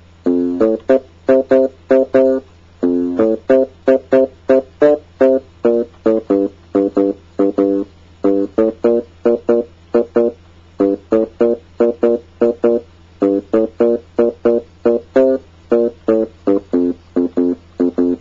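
Instrumental music: a plucked guitar riff of short, quick repeated notes in phrases, over a steady low hum, cutting off suddenly at the end.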